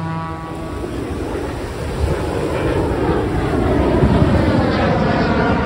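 An aircraft approaching overhead, its rushing engine noise building steadily louder with a sweeping, phasing quality.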